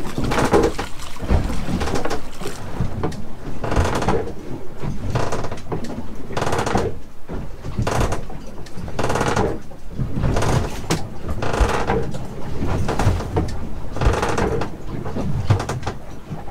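Waves slapping against the hull of a small cruiser as it rolls on an exposed mooring, heard from inside the cabin: an irregular slap and slosh about once a second, with knocks and creaks from the boat's fittings.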